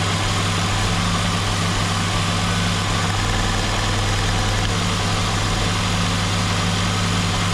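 Four-cylinder car engine idling steadily with a cylinder misfire, faint ticking with each misfire as the spark jumps from a bad, high-resistance spark plug wire.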